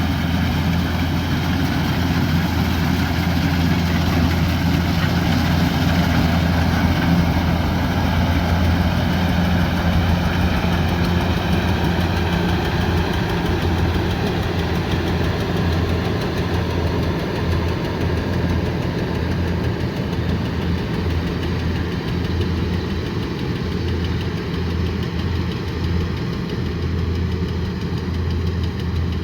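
Kubota combine harvester's diesel engine running steadily.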